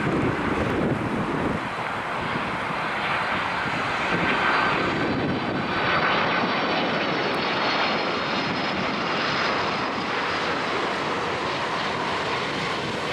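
Boeing 767-300's twin turbofan jet engines at approach power as the airliner flies past low on final approach: a steady jet rumble with a faint high fan whine, growing loudest a little before halfway through and easing off slightly after.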